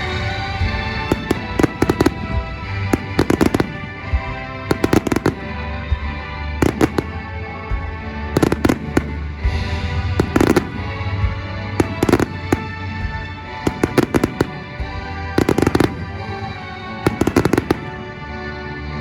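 Aerial fireworks bursting in crackling clusters about every one and a half to two seconds, over steady music played with the show.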